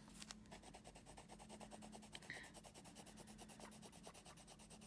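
Faint, fast scratching of a colored pencil shading on graph paper, quick back-and-forth strokes at about ten a second.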